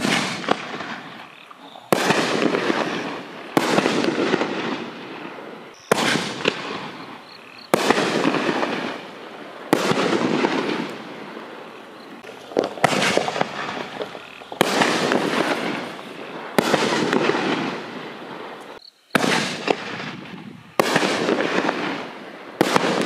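7-inch canister firework shells, double breaks, going off in quick succession: a string of sharp bangs about every two seconds, each fading out over a second or so.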